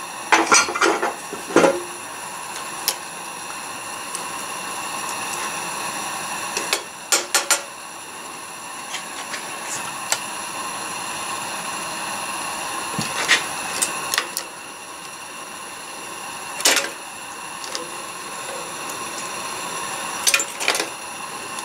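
Flat steel scraper knocking and scraping against a cast-iron melting pot and a tin can as dross and steel wheel-weight clips are skimmed off molten lead, a few sharp clinks several seconds apart. Under it runs the steady hiss of the gas furnace heating the pot.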